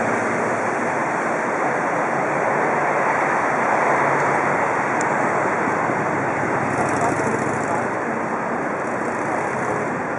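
Motorboats under way at speed, their engines and churning wake water blending into one steady rushing noise.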